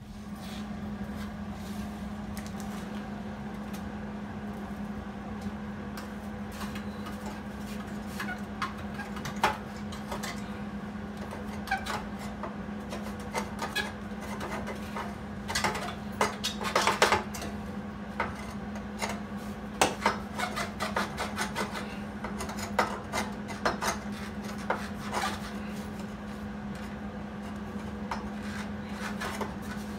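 Sheet-steel exhaust expansion chamber being handled and fitted against a tubular steel buggy frame and engine: scattered metal clinks, knocks and scrapes, with a longer scrape about 16 seconds in, over a steady low hum.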